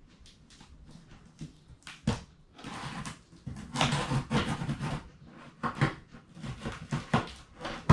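Knife slitting the packing tape on a cardboard shipping box: a run of scratchy scrapes and clicks, loudest about two to five seconds in.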